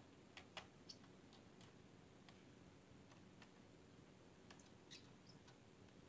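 Near silence: faint, scattered small clicks and ticks of a screwdriver turning screws into a laptop's plastic base, over a faint steady low hum.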